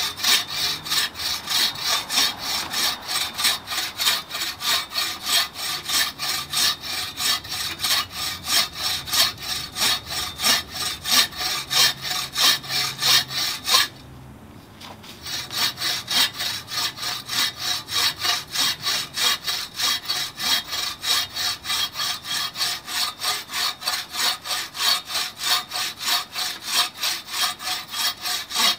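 TrailBlazer 24-inch takedown buck saw cutting through a log about 10 inches thick, the blade rasping through the wood in a quick, even rhythm of strokes. The sawing stops for about a second halfway through, then carries on at the same pace.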